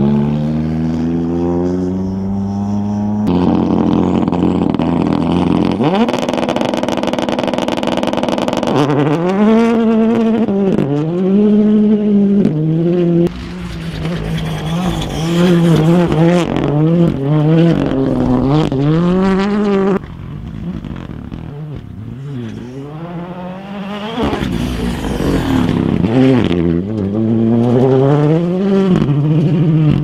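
M-Sport Ford Fiesta Rally2's 1.5-litre turbocharged three-cylinder engine driven flat out, revving hard with its pitch climbing and dropping over and over as it shifts gears and lifts through slides. The sound changes abruptly several times as it jumps between passes of the car.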